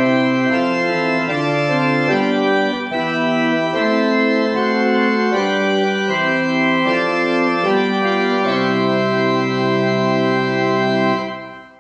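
Church organ playing the closing line of a hymn tune in slow, sustained chords, then holding a long final chord that dies away near the end.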